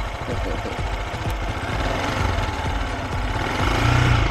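Motorcycle engine running steadily, its pitch rising briefly near the end.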